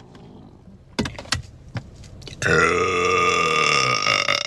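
A woman's long, loud burp that lasts about two seconds and starts about halfway through, with a few short clicks just before it.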